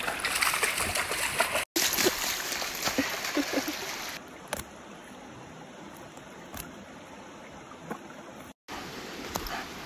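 A German shepherd splashing through a shallow creek, with water rushing over stones. About four seconds in, this gives way to a quieter, steady trickle of stream water with a few light clicks.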